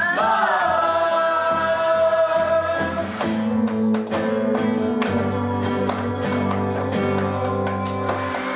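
A group of people singing together to a strummed acoustic guitar. A long note is held for about the first three seconds, then the strumming comes forward in a steady rhythm under the singing.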